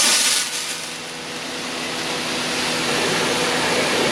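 Pressure washer running steadily, its hum holding one pitch under a spray hiss, with a loud burst of hiss at the start as air is bled out of the system. The sound slowly grows louder from about a second in.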